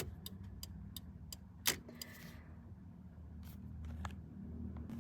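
Ford Expedition turn-signal flasher clicking steadily, about three clicks a second, over a low steady hum. The clicking is the sign that the signals are working again with the tilt steering wheel back in its raised position.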